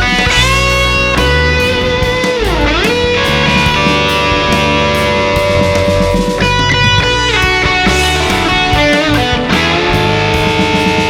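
Novo Serus J electric guitar playing sustained, effected lead notes over a phonk backing track with bass and drums. About two and a half seconds in, a held note dips sharply in pitch and comes back up.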